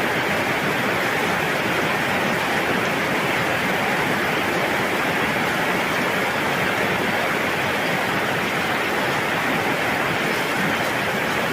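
A steady, even hiss with nothing else distinct in it.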